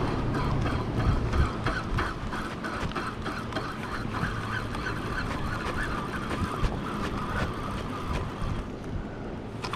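Wind buffeting the microphone and small waves lapping against a plastic kayak hull, with many small ticks and splashes throughout.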